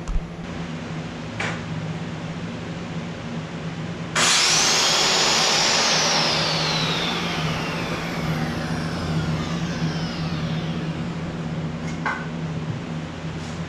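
A handheld power saw starts suddenly about four seconds in with a loud whine that rises and holds for a second or two. It is then released and winds down in a long falling whine over several seconds. A steady low hum runs underneath, with a couple of light knocks.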